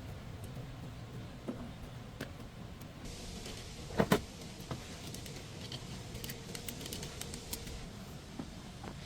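Hands working on a car: scattered light clicks and clinks, with two sharp knocks in quick succession about four seconds in, over a steady low hum.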